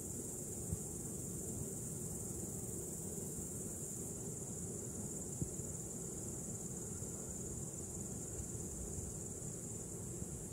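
Crickets chirring steadily in a high-pitched continuous drone, over a low steady background rumble.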